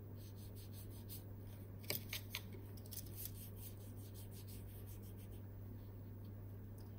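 Paintbrush mixing watercolour paint in a plastic palette well: a run of quick, light scratchy taps and scrapes against the plastic, with a few louder clicks about two seconds in.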